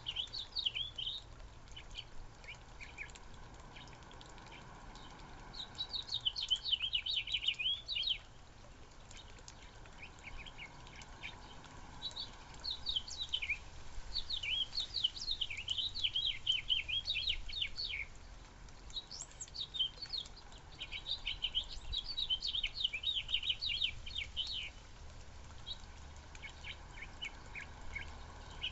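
Backyard birds chirping in quick runs of short, high chirps, with short pauses between the runs.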